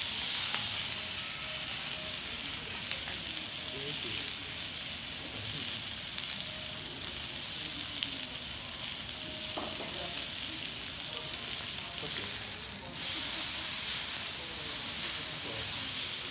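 Thin slices of wagyu beef sizzling on a hot teppanyaki griddle, a steady crackling hiss with occasional faint clicks. The sizzle grows louder about thirteen seconds in.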